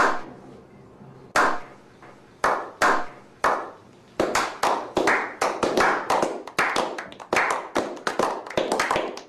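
A small group slow-clapping: a few single claps about a second apart, then from about four seconds in more hands join and the clapping quickens into steady applause.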